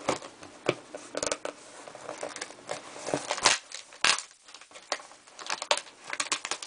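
Knife cutting and scraping through packing tape on a cardboard shipping box: irregular scratchy cuts, rips and sharp clicks, loudest about three and a half seconds in.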